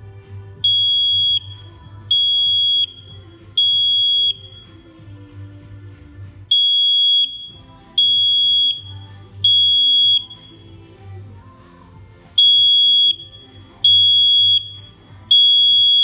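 ANSORL AS-SSD101 battery smoke detector sounding its alarm: a loud, high beep about three-quarters of a second long, three in a row and then a pause, repeated three times. This is the temporal-three alarm pattern. Quiet background music plays underneath.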